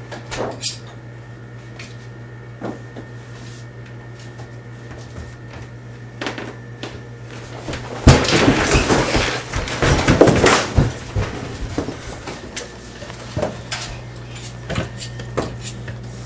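Scattered knocks and clicks over a steady low hum, with a dense burst of loud clattering and bumping lasting about three seconds just past the middle.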